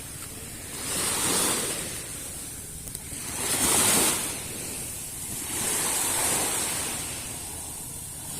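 Small waves breaking and washing up the shore, swelling and fading three times, about every two to three seconds.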